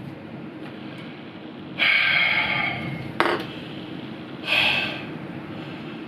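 A person's breathing: a long loud breath about two seconds in and a shorter one near the end, with a sharp click between them, over a steady low hum.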